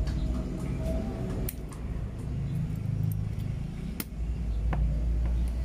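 Scissors snipping through coaxial cable: a few sharp metallic clicks, the clearest about one and a half seconds in and again about four seconds in, over a steady low hum.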